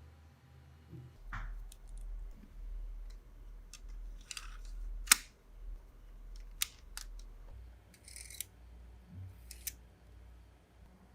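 Lego Technic plastic parts being handled and snapped together: a series of sharp clicks and brief scrapes, the loudest click about five seconds in.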